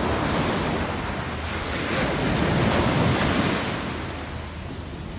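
Small ocean waves breaking and washing up the sand, with wind rumbling on the microphone. The wash swells to its loudest about two to three seconds in, then eases off.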